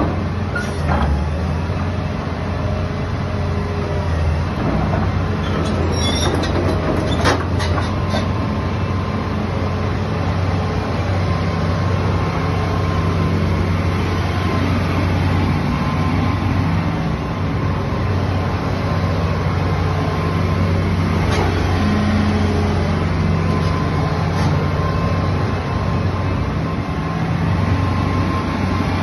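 Hitachi ZX200 crawler excavator's diesel engine running steadily under hydraulic load as the machine swings and works its boom and bucket. A few sharp metallic clanks come about six to seven seconds in.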